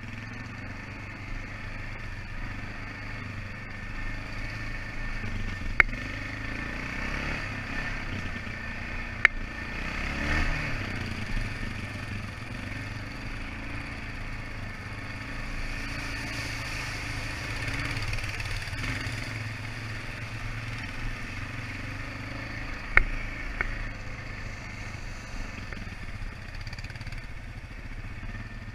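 ATV engine running steadily as it rides the trail, its pitch rising and falling a little with the throttle. Three sharp knocks stand out over it.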